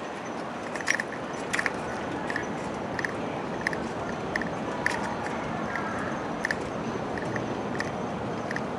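Footsteps on an asphalt path at walking pace, a short scuff about every 0.7 seconds, over a steady background rush.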